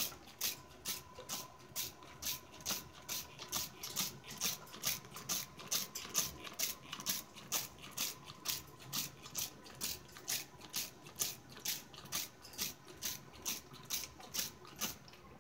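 Hand-held trigger spray bottle pumped in a steady rhythm, about three short hissing squirts of water mist a second, stopping just before the end.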